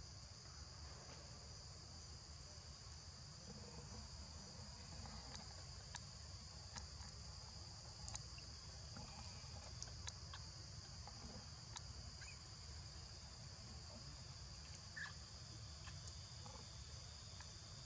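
Faint, steady high-pitched insect chorus, with a few scattered light clicks and a low rumble underneath.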